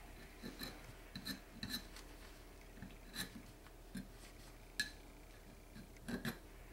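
Metal tenon cork scraper scraping old cork off a clarinet tenon, stripping it for a new cork: a dozen or so short, faint scrapes at an uneven pace.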